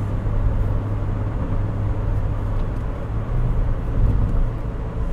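Engine and road noise of a 2010 Toyota Yaris 1.33 Dual VVT-i four-cylinder, heard from inside the cabin while it drives at a steady engine speed. A vehicle passes the other way about four seconds in.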